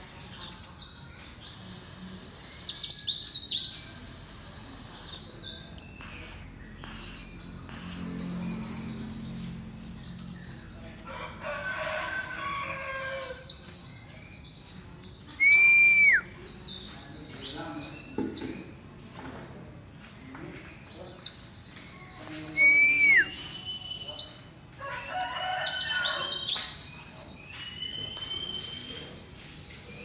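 Caged white-eye (pleci, Zosterops) singing loudly: phrases of rapid, high, downward-sweeping twittering notes, broken by short pauses.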